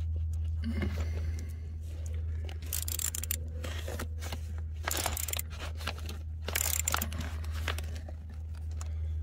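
Small hand ratchet clicking in short runs as it threads an exhaust manifold stud into the cylinder head, over a steady low hum.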